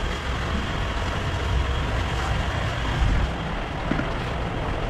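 Steady low rumble and hiss of busy background noise, like a street-food kitchen or nearby traffic, with a faint knock about four seconds in.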